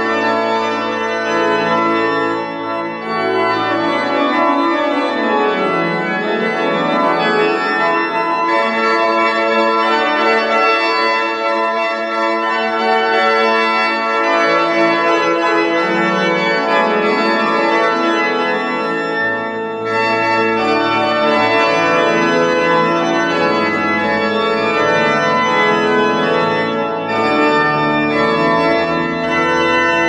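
New Rieger pipe organ playing full, sustained chords. The deep pedal bass drops out about three seconds in and comes back in about two-thirds of the way through.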